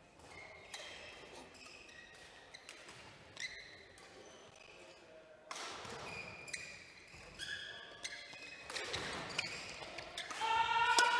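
Badminton doubles rally: sharp clicks of rackets striking the shuttlecock and short high squeaks of shoes on the court floor, busier and louder near the end.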